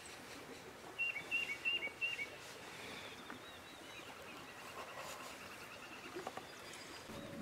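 A songbird singing outside: a quick run of about five short whistled notes, each dropping at its end, about a second in, followed by a fainter, higher trill.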